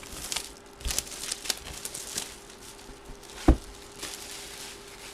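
Packaging being handled and opened: plastic and cardboard crinkling and rustling in short scattered bursts. One sharp knock comes about three and a half seconds in.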